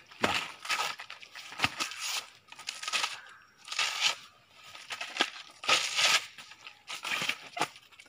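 Crisp cracking and tearing of fibrous banana-stem sheaths as the outer layers are split with a machete and pulled away by hand to bare the white core. The sounds come as a string of sharp, irregular snaps and rips, several of them loud.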